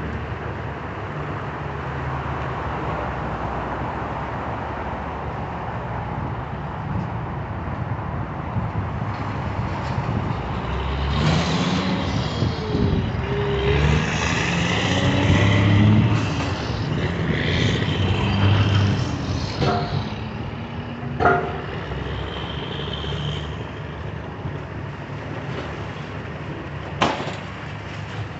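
Heavy diesel demolition machinery running steadily, with a louder stretch of crunching and scraping debris in the middle and two sharp bangs, one about three-quarters through and one near the end.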